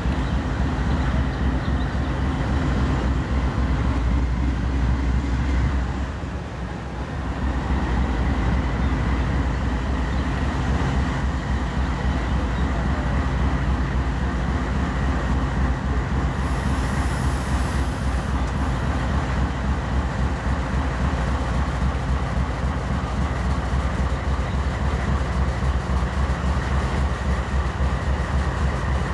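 Norfolk Southern diesel locomotive approaching at speed, its engine running with a steady low drone over the train's rolling noise. A brief high hiss comes about two-thirds of the way through.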